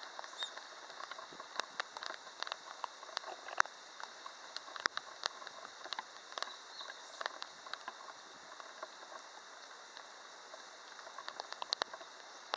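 Rain pattering: a steady hiss with irregular drips and taps falling throughout.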